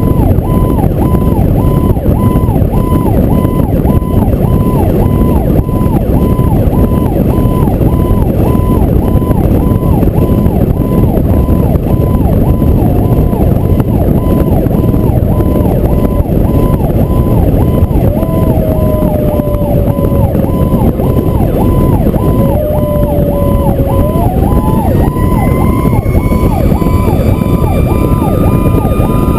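Fire truck running with its sirens on, heard over heavy wind and road noise on the microphone. One siren tone pulses about twice a second throughout. A second siren slowly falls in pitch through the middle, then winds back up to a higher steady wail near the end.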